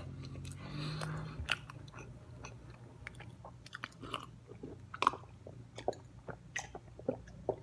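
Close-up mouth sounds of a man eating and drinking: soft chewing and wet clicks, then gulps as he swallows iced tea from a glass, irregular, about one a second. A low steady hum sits underneath.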